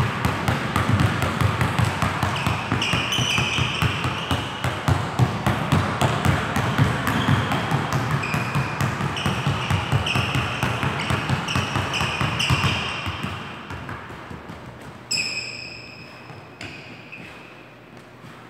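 Basketball dribbled rapidly on a hardwood gym floor, with quick running footsteps and short sneaker squeaks. The bouncing gets quieter about two-thirds of the way through, and a sharp hit with a squeak stands out near the end.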